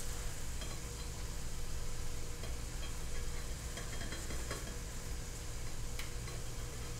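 Food frying at a low sizzle in pans on an electric stove, with a spatula stirring and scraping in a pan and a few light clicks, over a steady low hum.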